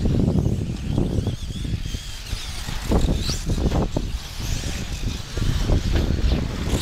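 1/8-scale electric off-road buggies racing on a dirt track: faint motor whines rise and fall over a heavy, uneven low rumble.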